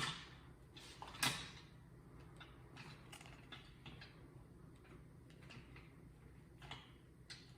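Two sharp plastic clicks, one at the start and one about a second in, then faint scattered ticks and taps as a toy robot is handled.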